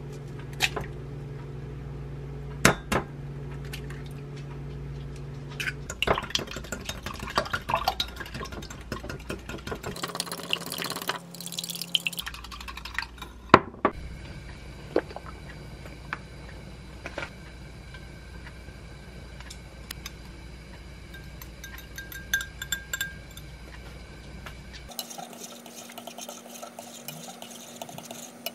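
Kitchen sounds of making scrambled eggs: two sharp taps as an egg is cracked on a glass mug, a quick run of utensil clinks, then wooden chopsticks stirring eggs in a nonstick frying pan near the end.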